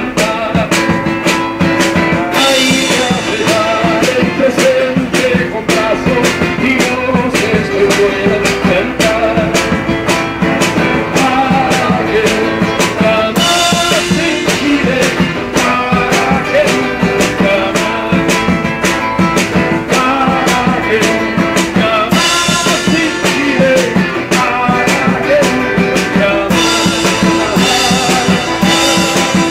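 Live band music: an acoustic guitar being strummed over drums keeping a steady beat.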